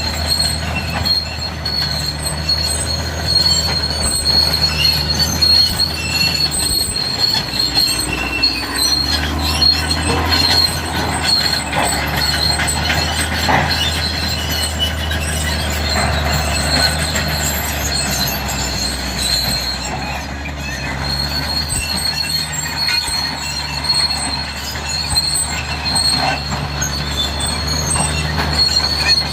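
Cat D6R crawler bulldozer working, its diesel engine running steadily under a continuous high-pitched squeal and clatter from the steel tracks.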